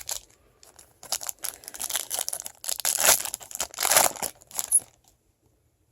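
Foil wrapper of a Bowman Chrome card pack crinkling and tearing as it is opened by hand, a run of uneven rustles from about a second in that stops just before the five-second mark.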